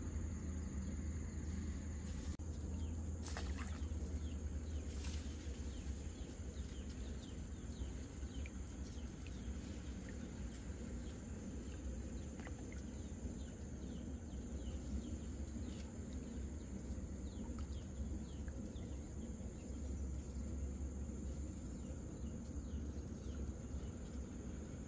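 Rural outdoor ambience: a steady high insect drone with many short falling chirps over a low rumble, and a couple of faint clicks early on.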